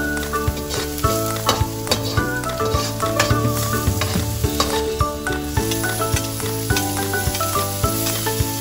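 Food sizzling in hot oil in a frying pan while a utensil stirs it, with frequent clicks and scrapes against the pan, over light ukulele background music.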